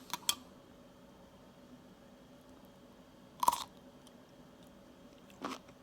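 A bite into a crisp dill pickle, a cucumber brined one day in salt water without vinegar: one sharp crunch about three and a half seconds in, then faint chewing near the end. Two small clicks come just at the start.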